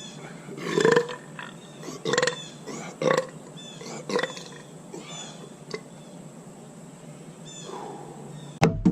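A man burping again and again, about one burp a second, the first four the loudest and the later ones shorter and weaker, as he swallows air while eating a large amount fast.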